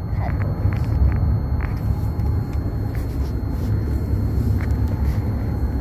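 Steady low rumble of a car driving, heard from inside the cabin, with a few faint ticks over it.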